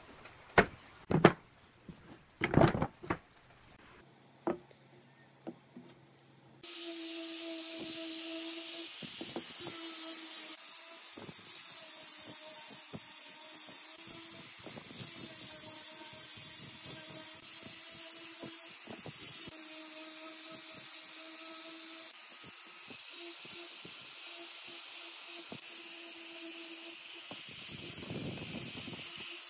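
Wooden pine blocks knocked down onto a workbench a few times. From about seven seconds in, an electric angle grinder with a sanding disc runs steadily, grinding and shaping the edges of a pine block, with a steady motor hum under the hiss of sanding wood.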